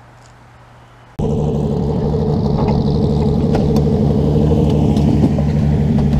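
A vehicle engine running steadily, loud and close to the microphone, cutting in suddenly about a second in.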